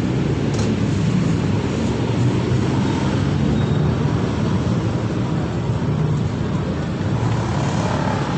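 Steady low rumble of road traffic, with a constant low hum in it.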